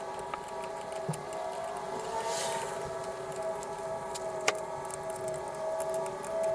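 A few sharp metallic clicks and clinks as lug nuts are threaded on and snugged up on a refitted wheel, the loudest about four and a half seconds in. A steady, slightly wavering whine runs underneath.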